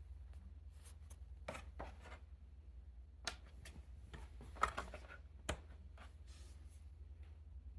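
A few sharp clicks and knocks from hands handling small parts, the loudest about halfway through, over a steady low hum.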